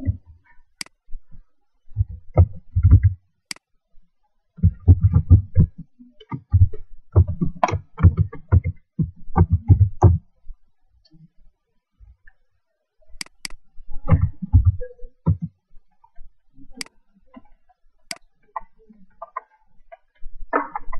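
Typing on the ASUS K54 laptop's keyboard in quick bursts of key strokes, with a few separate sharp single clicks in between.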